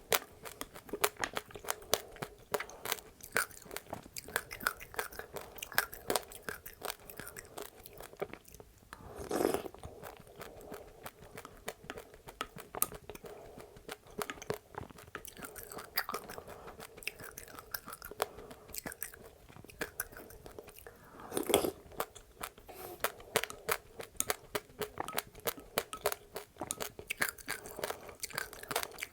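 Close-up chewing of passionfruit with its seeds and sesame or flax seeds: a dense run of small, rapid crunches and crackles, with two louder bursts about a third of the way in and about three quarters of the way in.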